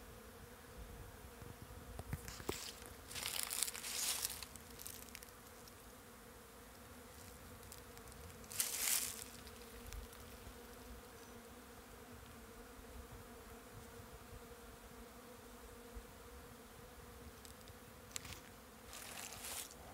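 Bees buzzing around flowering willow catkins, a steady low hum throughout. Three brief louder bursts of hiss break in, a few seconds in, about halfway, and near the end.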